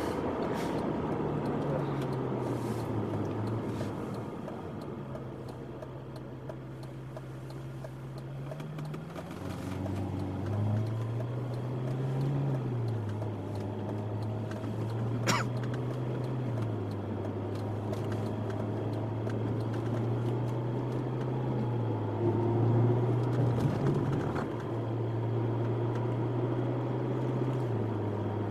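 Ferrari California T's twin-turbo V8 running at moderate revs, heard from inside the cabin over tyre and road noise; its low drone rises and falls several times as the driver goes on and off the throttle. A single sharp click about halfway through.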